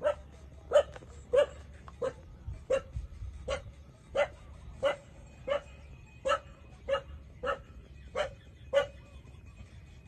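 A dog barking steadily, one short bark about every two-thirds of a second, fourteen or so in a row.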